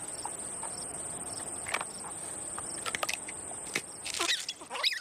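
A steady high insect buzz, like crickets, with scattered light clicks as an eggshell cracks open. Near the end come a few short, quick squeaky chirps.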